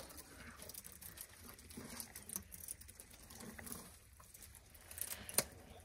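African elephants feeding on thorn branches: faint rustling and crackling as the thorny twigs are pulled in and chewed, with a sharper snap near the end.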